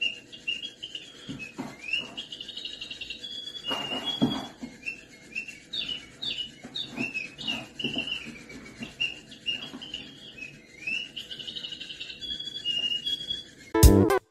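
Fast, continuous bird-like chirping and twittering, with a few dull knocks, the strongest about four seconds in. Loud music cuts in just before the end.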